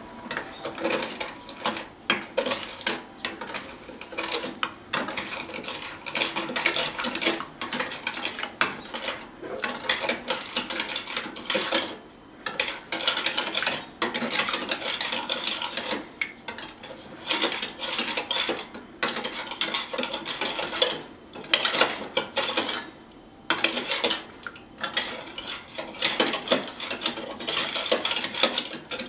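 A stainless measuring spoon stirs and scrapes inside a plastic measuring cup, mixing a miso-based seasoning sauce. It makes quick, repeated scraping and clicking strokes, with a few short pauses.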